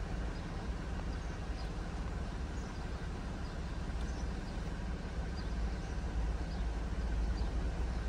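Jeep engine idling steadily, a low even hum heard from the driver's seat.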